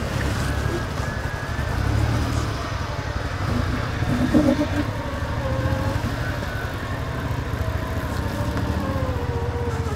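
Engine of a big-tyred off-road 4x4 working at low speed as it crawls over rocks, its pitch rising and falling with the throttle. A short louder sound stands out about four seconds in.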